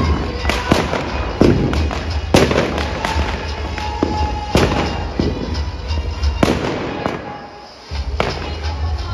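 Firecrackers and fireworks bursting in a rapid, irregular string of sharp bangs, some loud and close, others further off, with music playing underneath.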